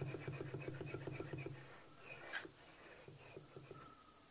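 Schaublin 102 compound slide rubbed back and forth on the freshly blued dovetail of its lower half to take a bearing print: a faint, rapid, even metal-on-metal chatter that stops a little under two seconds in. A light click follows.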